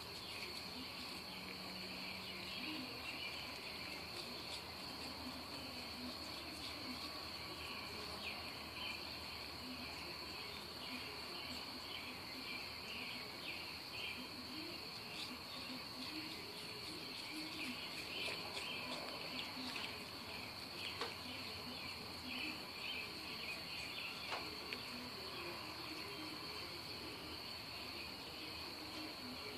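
Night insects chirping steadily in a cricket-like chorus: a constant high trill with a busier pulsing chirp a little lower in pitch, and scattered faint ticks.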